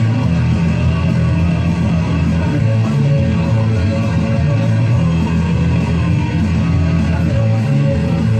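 Rock music with electric guitar playing continuously.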